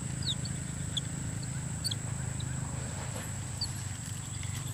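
Swamp-edge ambience: a steady high-pitched insect drone with scattered short, quick bird chirps, over a steady low rumble.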